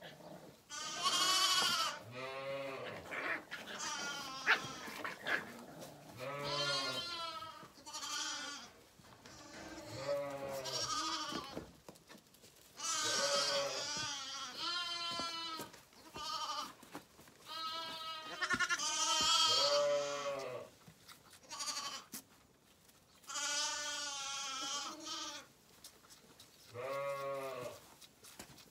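Zwartbles lambs bleating over and over, about a dozen wavering calls of roughly a second each, one every couple of seconds.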